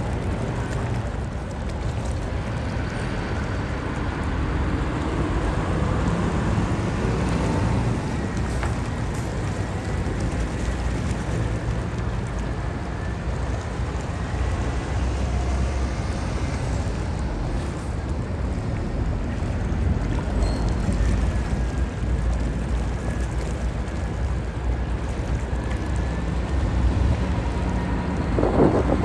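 Diesel engines of Hino trucks running as they drive off a car ferry and past, over steady wind noise on the microphone. A louder rumble swells near the end as a truck comes close.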